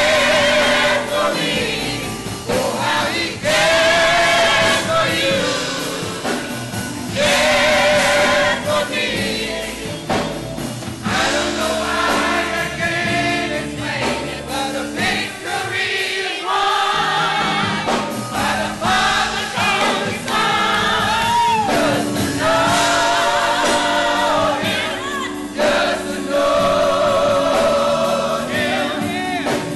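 Gospel choir singing in full voice, with instruments accompanying.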